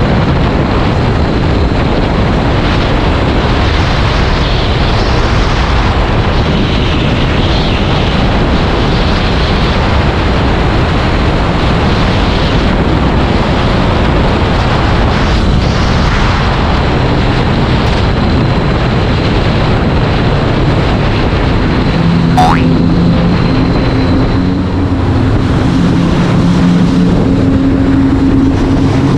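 Heavy wind noise buffeting the microphone of a Honda CBR500R rider under way, with the bike's parallel-twin engine note coming through under the wind in the last several seconds.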